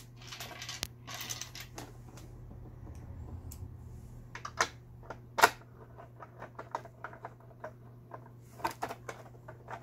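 Plastic cover parts of a Singer 7256 sewing machine being handled and fitted onto the body: rubbing and scraping at first, then a scatter of sharp clicks and knocks, the loudest about five seconds in, as the plastic pieces are pushed together.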